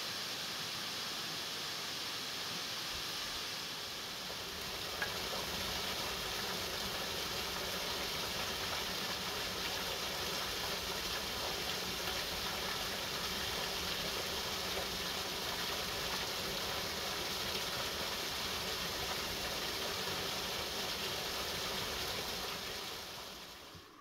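Steady rushing hiss of falling water from a waterfall, fading out near the end.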